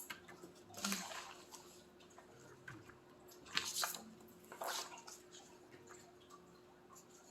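Three short scratchy rustles, about a second in, at three and a half seconds and near five seconds, over a faint steady hum.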